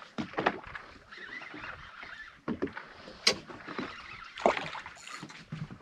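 Water lapping and slapping irregularly against the hull of a drifting boat, with a sharp click about three seconds in.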